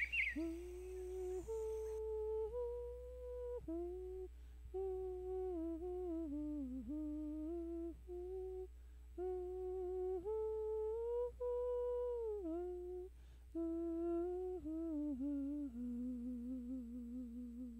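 A slow, wordless melody hummed in long held notes, with a slight vibrato on the final note. A few bird chirps sound right at the start.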